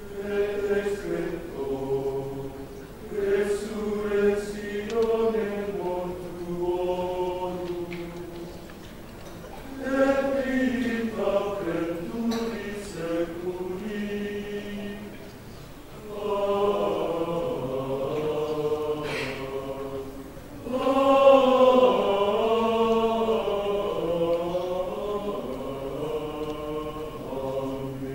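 Men's choir singing Gregorian chant, in long phrases separated by short pauses.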